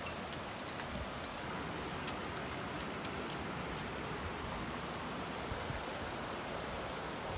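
Mountain stream running steadily over rocks, with a few faint clicks.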